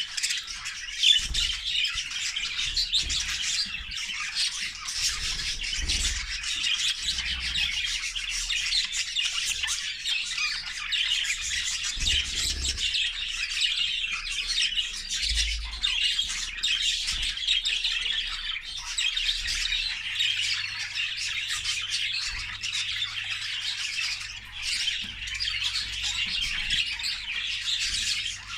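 A flock of English exhibition budgerigars chattering and squawking all at once, many birds calling over each other in an unbroken stream.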